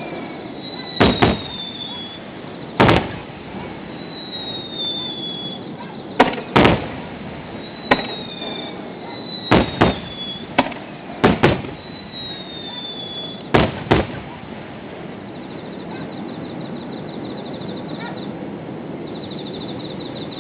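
Aerial fireworks shells bursting, a dozen or so sharp bangs, some in quick pairs, with high gliding whistles between them. About 14 s in the bangs stop, leaving a steady background hum and a faint rapid high chirring.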